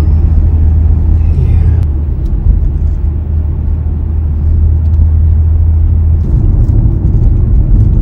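Road noise inside a moving car's cabin: a steady low rumble from the tyres and engine, which changes about six seconds in.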